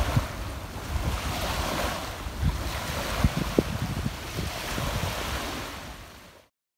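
Small waves washing up and breaking on a sandy beach, with gusts of wind buffeting the microphone in low thumps. The sound fades and cuts off shortly before the end.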